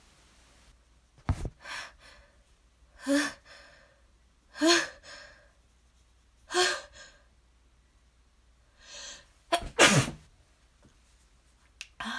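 A person's exaggerated allergy-sneeze buildup. Three loud, drawn-in 'ah' gasps, each rising in pitch, come about a second and a half to two seconds apart, then a quieter breath, then one loud sneeze about ten seconds in.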